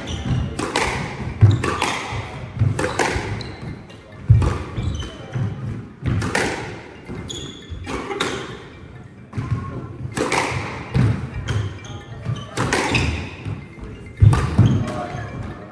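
Squash rally: the ball cracking off racquets and the court walls every second or so, with short shoe squeaks on the court floor between the hits.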